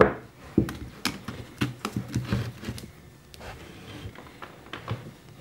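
Handling noises from plaster slip-casting molds on a wooden bench: a string of small clicks, taps and light knocks as the mold blocks are moved and a rubber band is pulled off one, busiest in the first few seconds.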